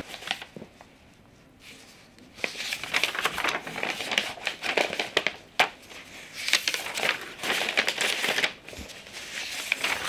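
A stack of loose paper sheets being handled and leafed through, rustling and crinkling in irregular bursts. It is mostly quiet for the first two seconds, then the rustling runs on almost without pause.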